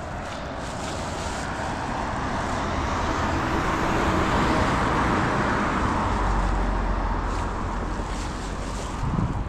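A car driving past, its road and tyre noise swelling to a peak about halfway through and then fading away.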